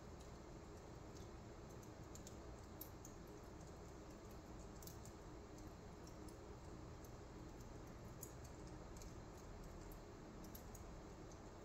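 Wood fire burning low on a fireplace grate, giving faint, irregular crackles over a steady low hiss.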